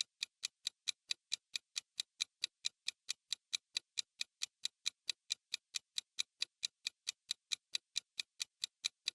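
Clock-ticking sound effect, a fast, even run of about five light ticks a second, marking the countdown while the quiz question is being thought over.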